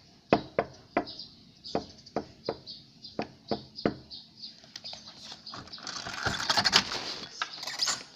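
Knocking in three sets of three knocks, following the shop sign's instruction to knock up to three times. Near the end comes a louder rustling noise lasting about two seconds.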